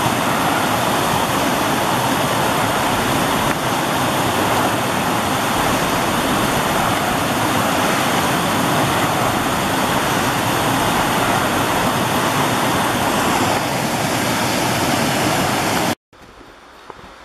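A small brook cascading over a rock ledge into a pool: a steady, loud rushing of water. It cuts off suddenly near the end, leaving a much quieter outdoor background.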